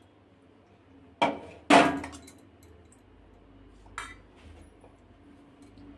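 Steel spoon clinking against a stainless steel bowl: two sharp knocks close together about a second in, the second the loudest, and a lighter clink about four seconds in.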